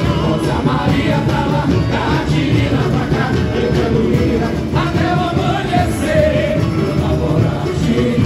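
A samba school drum section (bateria) playing a continuous carnival samba rhythm, with voices singing the samba-enredo over the drums.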